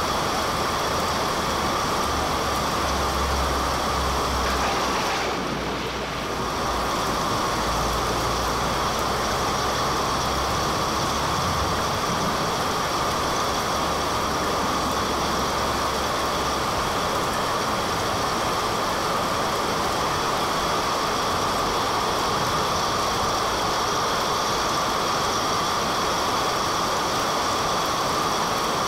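Steady rushing noise with a low rumble beneath it for the first half, dipping briefly about five seconds in.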